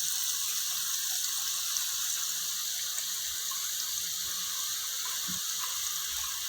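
Hot oil sizzling steadily as drops of ragi and gram-flour batter, pushed through a boondi ladle, fry into boondi.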